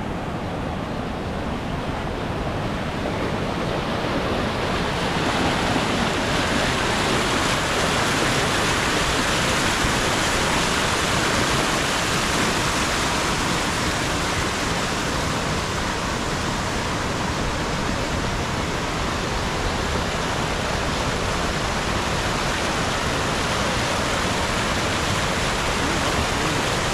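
Waterfall rushing: a steady wash of falling water that grows louder and brighter over the first few seconds, then holds even.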